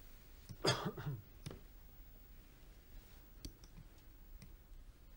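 Quiet, sparse clicking of poker chips being handled at the table, with a louder short clatter about a second in, then single clicks every second or so.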